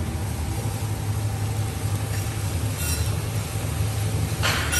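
Kitchen exhaust fan running with a steady low drone. A short noisy scrape comes near the end.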